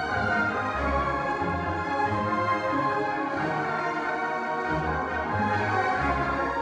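A large orchestra, violins, cellos and double basses in view, playing live: sustained chords over low bass notes that change about once a second, heard from the audience seats of a concert hall.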